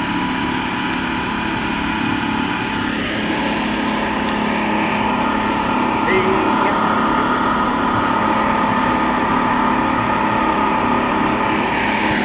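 Boat engine running at a steady pitch under way at sea, over a steady rush of wind and water noise.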